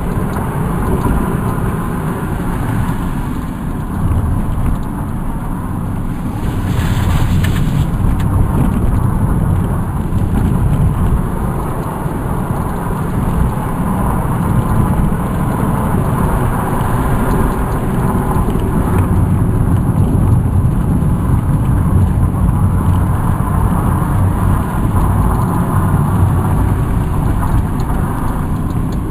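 Car driving on an asphalt road, heard from inside the cabin: steady engine and tyre noise, mostly a low rumble.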